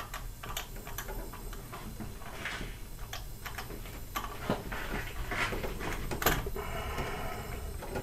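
Clicks and rattles of a leak-down tester's hose and fittings being handled, with short hisses of compressed air and a longer hiss near the end as cylinder six is pressurised; a steady low hum runs underneath.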